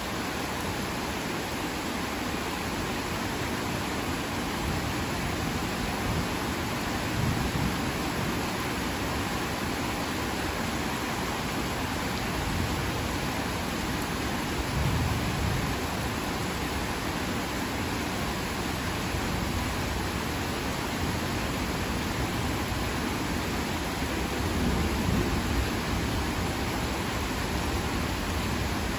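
Heavy rain falling steadily, a dense even hiss, with a few brief low swells about a quarter, half and most of the way through.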